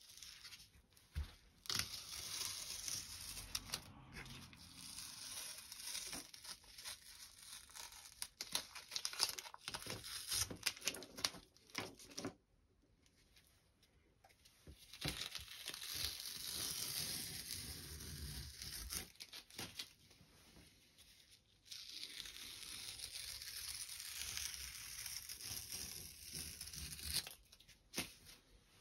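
Masking tape being peeled off the edges of a watercolour painting on paper, a crackling, tearing rip drawn out in several long pulls with two short pauses between them.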